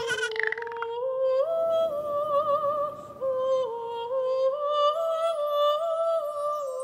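A wordless female voice humming a slow melody of held notes with vibrato, after a brief noisy burst at the very start.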